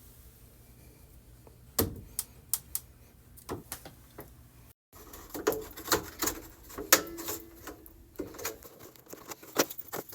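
Sharp, irregular plastic clicks and taps of hands and tools working on a GE microwave door's plastic trim and panels, sparse at first and busier after a brief gap about five seconds in.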